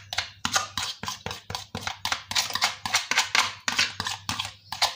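A spoon scraping and knocking mashed banana out of a glass bowl in quick repeated strokes, about five a second.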